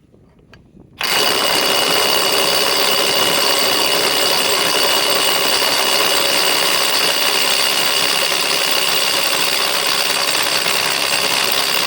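RIDGID R872081 subcompact cordless impact wrench hammering without a break as it works to loosen a tightly torqued fastener. It starts about a second in and runs loud and steady.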